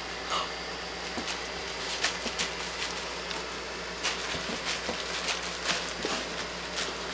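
Soft, irregular rustles and taps as an Italian greyhound grabs and tugs at a plush duck toy on carpet, over a steady hiss.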